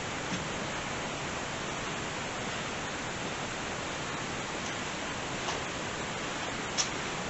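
Steady, even hiss with a few faint ticks and one sharper click near the end.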